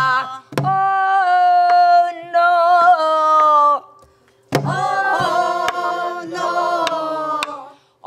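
Namdo folk singing to a Korean buk barrel drum. A woman sings long held notes with a wide wavering vibrato. After a short break about four seconds in, several voices sing a phrase together. Sharp drum strokes mark the beat about once a second.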